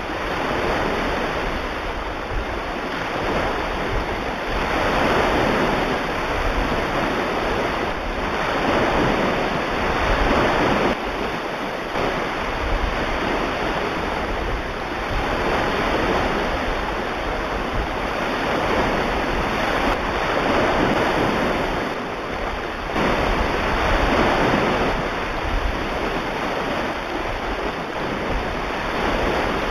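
Recorded ocean surf: waves rolling in and washing back, the rush swelling and easing every four to five seconds.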